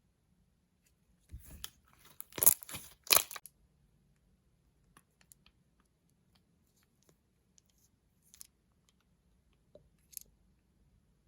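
Slime being worked by hand: a couple of seconds of crackly tearing and crunching, loudest twice about two and a half and three seconds in, then sparse faint clicks and a short crackle near the end.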